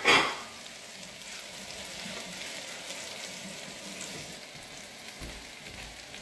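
Hot oil in a Swan electric deep fryer sizzling and bubbling steadily around a basket of flour-dredged onions. A short, loud burst of noise comes right at the start.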